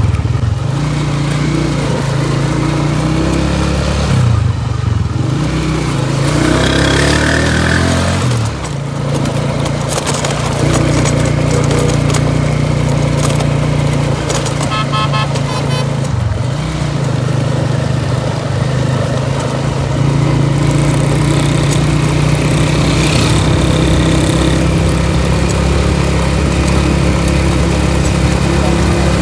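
Motorcycle engine running steadily while riding. Its note falls and rises about four to eight seconds in, then settles again.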